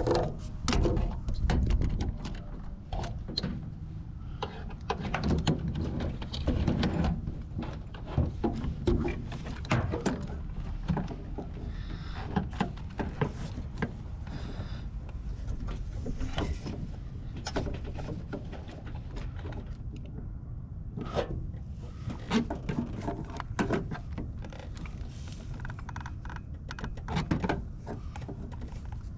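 Irregular clicks, knocks and light rattles of hand tools and metal parts being handled.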